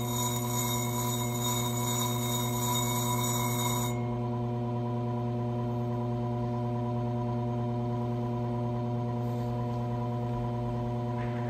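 Electric motor of a bench-top flat grinding disc running with a steady hum. A higher whine on top cuts off about four seconds in.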